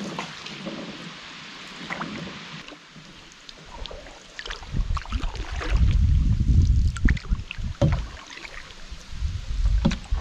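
Canoe paddling: short splashes and drips of water off the paddle against the hull. From about four and a half seconds in, gusts of wind buffet the microphone as a loud, uneven low rumble.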